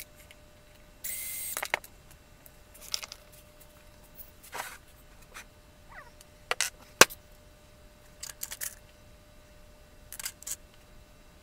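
Scattered clicks and knocks of cut wooden model parts being handled and fitted together on a workbench, with a short hiss about a second in; a single sharp click about two-thirds of the way through is the loudest.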